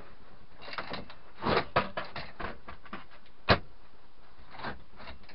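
Wooden slatted pull-out bed frame being slid out by hand: a run of wood scraping and rattling strokes, then one sharp wooden knock about three and a half seconds in and a softer one near the end.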